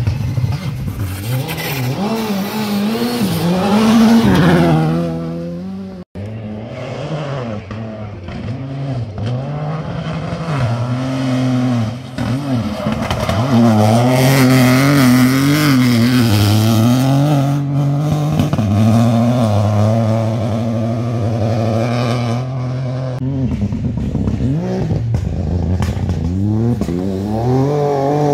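Rally cars passing at speed, engines revving hard and dropping again and again through throttle lifts and gear changes, with tyres scrabbling on the loose surface. The sound cuts off abruptly about six seconds in and again near twelve seconds, each time giving way to another car's pass.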